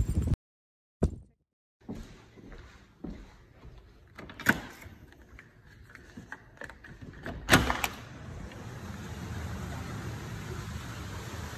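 A door being handled and opened: scattered knocks and clicks, the loudest a pair of sharp clacks close together about seven and a half seconds in, then a steady rushing noise.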